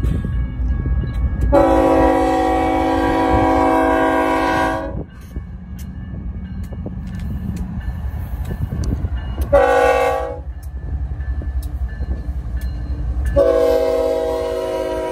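Multi-chime air horn of a BNSF GE ES44C4 locomotive leading a double-stack freight train. It gives a long blast of about three seconds, a short blast about ten seconds in, and another long blast starting near the end, over the low rumble of the diesel locomotives passing close by.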